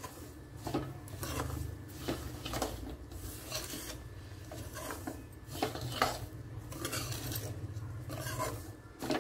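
A spatula scraping and stirring dry, grainy semolina around a kadai in irregular strokes, about one or two a second, with a steady low hum underneath.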